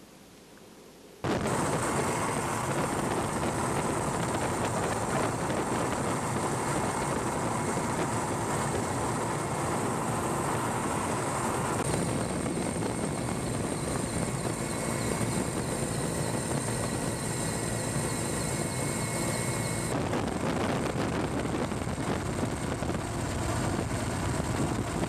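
Steady, loud helicopter engine and rotor noise heard from aboard, starting suddenly about a second in and shifting in tone twice, at about halfway and again about two-thirds through.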